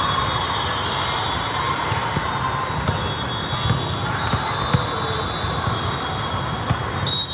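Busy gymnasium hubbub of crowd chatter, with scattered sharp thuds of volleyballs being struck and hitting the floor. Faint high squeaks run through it, and a brief, brighter high tone comes near the end.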